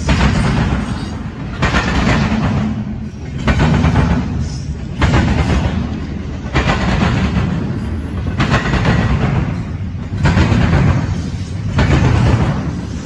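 Loaded double-stack intermodal well cars rolling past with a steady low rumble, the wheels banging and clattering over the railroad diamond in loud bursts about every one and a half to two seconds, eight times, as each car's trucks cross.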